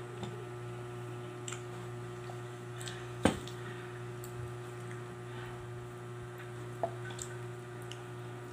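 Steady low electrical hum in a small room, with scattered faint clicks and ticks; one sharp click a little over three seconds in is the loudest sound, and a smaller click follows near seven seconds in.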